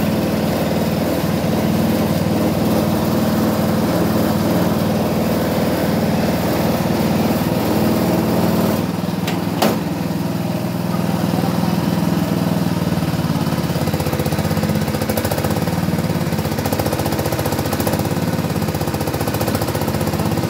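Mushroom fruiting-bag filling machine running steadily with a droning mechanical hum. About nine seconds in the running note changes slightly and there is a single sharp click.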